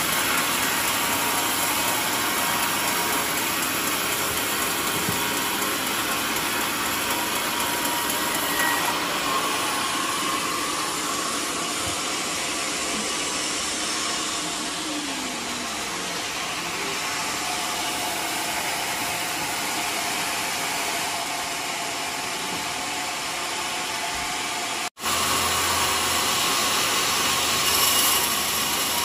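Band sawmill running, its blade cutting through mahogany timber with a steady, dense noise. About 25 seconds in the sound drops out for an instant and comes back with a low hum underneath.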